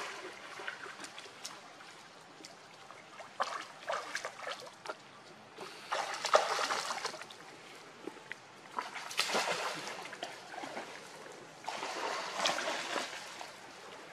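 Pond water splashing and sloshing as an adult macaque and its baby swim through it, in four separate bouts of about a second and a half each.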